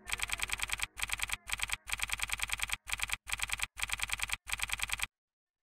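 Typewriter keystroke sound effect: rapid clicks, several a second, in runs broken by short pauses, stopping about five seconds in.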